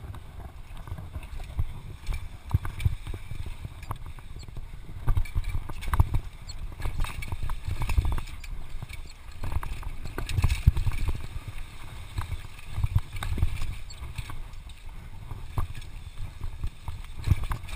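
Mountain bike descending a rough dirt trail at speed, heard from a camera carried by the rider: wind rumbling on the microphone, tyre noise, and the bike's chain, frame and suspension rattling and knocking over bumps, with a louder run of knocks near the end.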